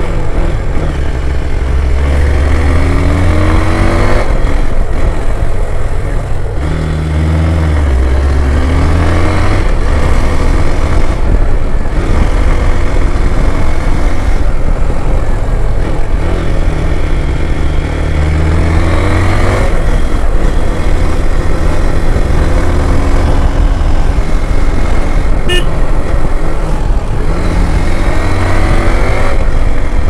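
Motorcycle engine accelerating, its revs rising and dropping back several times as it goes through the gears, under heavy wind noise on the microphone.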